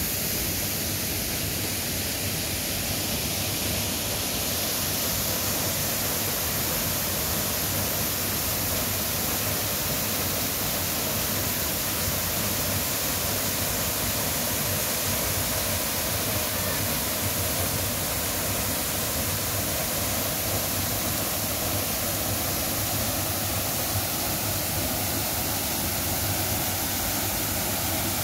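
Waterfall cascades pouring into a pool, making a steady rush of falling water.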